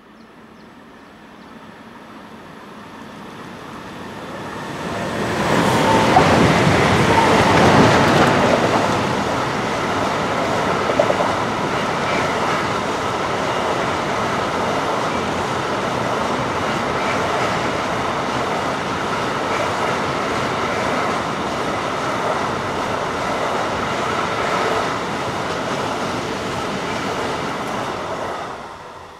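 Class 185 electric freight locomotive passing at speed, pulling an intermodal train of pocket wagons loaded with truck semitrailers. The sound builds over the first few seconds and is loudest about six to eight seconds in as the locomotive goes by. The wagons then roll past with a steady clatter of wheels on rail until the sound cuts off near the end.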